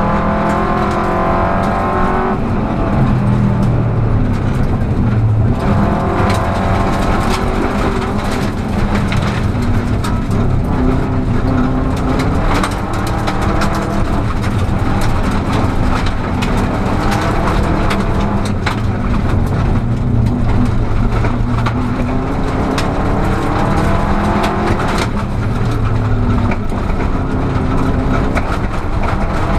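Rally car engine heard from inside the cabin at speed, its pitch repeatedly climbing under acceleration and dropping at gear changes and lifts. Sharp clicks and clatter from the car running over a gravel road come through on top.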